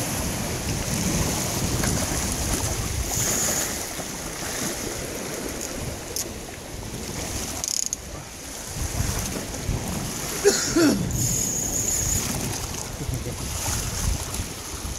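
Sea waves washing and surging against a rock ledge, with wind buffeting the microphone. A brief louder noise stands out about ten and a half seconds in.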